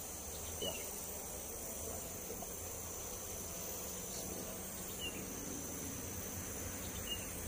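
Steady, high-pitched insect chorus, with a few short high chirps.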